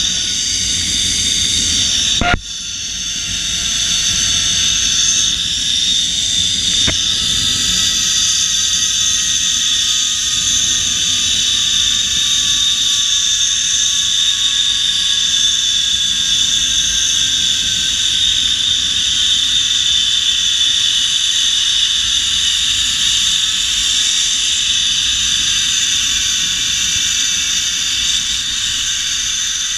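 Zip line trolley pulleys running along the steel cable in a steady high whine, with wind rushing over the microphone. A sharp click comes about two seconds in, and a fainter tone in the whine falls slowly in pitch as the ride goes on.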